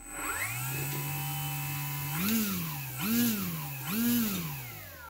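Emax GT3526 brushless motor spinning a propeller: it spins up quickly and holds a steady pitch. It is then throttled up and back down three times in quick succession before spooling down near the end.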